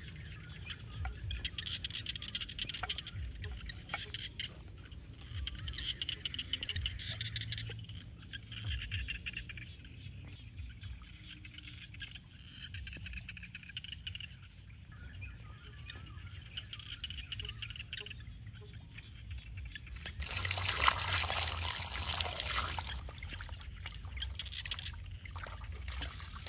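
Water poured from a plastic jug splashing onto muddy ground, a loud rush lasting about three seconds near the end. Before it, soft scraping and rustling of an eel being rubbed in wood ash on the ground.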